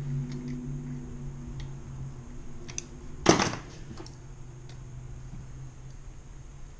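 Light metallic clicks and one loud clunk about three seconds in, from hands and tools working on the key machine's motor mount and clamps, over a steady low hum.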